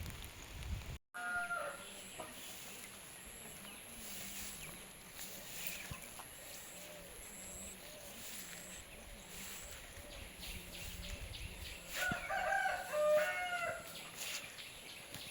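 A rooster crowing about twelve seconds in, a stepped call of a second or so, with a shorter fowl call just after a brief cut near the start.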